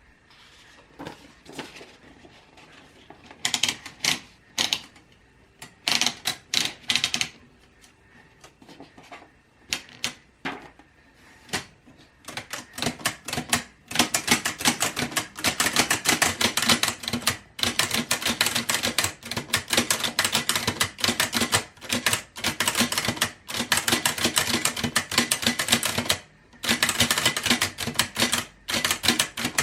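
1911 Bennett miniature typewriter being typed on. A few scattered, spaced-out keystrokes come first, then from about halfway a fast, continuous run of key clacks, broken by a couple of brief pauses.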